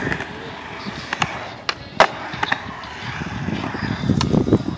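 Skateboard wheels rolling on a concrete bowl: a steady rumble that grows louder near the end as the board carves up the wall. Sharp clacks come about a second in and again at about two seconds, the loudest at two seconds.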